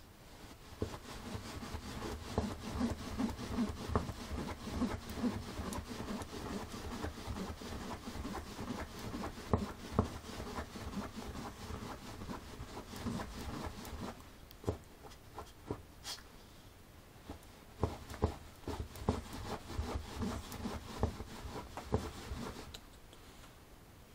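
A small dog rolling and wriggling on its back on a fabric cushion, its body and fur rubbing and scuffling against the cloth, with many short knocks. It goes quieter for a few seconds past the middle and again near the end.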